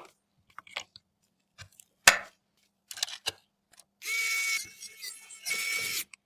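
Computer hardware being handled during assembly: a few sharp clicks and knocks, then two short rasping sounds about half a second each, with a faint whine in them, in the second half.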